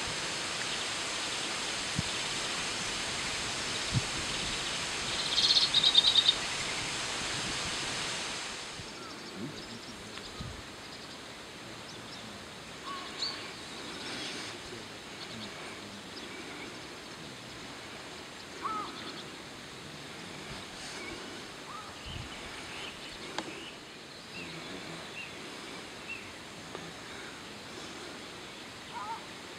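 Outdoor ambience: a steady rushing background noise, with a short bird twitter about six seconds in as the loudest sound. About eight seconds in the rushing drops away, leaving a quieter background with scattered faint bird calls.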